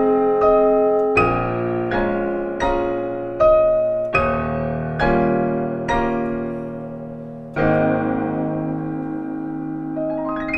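Piano playing a slow passage of chords, one struck about every second, each ringing and fading. A last chord about three-quarters of the way through is held and left to decay, and a quick rising run of high notes follows near the end.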